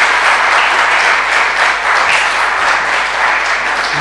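Audience applauding, a dense steady patter of many hands clapping that begins to ease off near the end.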